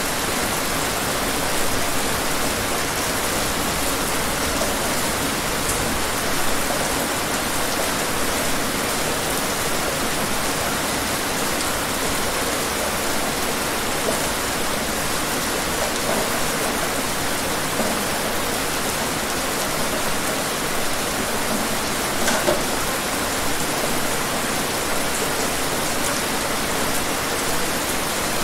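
Steady rainfall, an even hiss of water with a few louder single drop hits now and then.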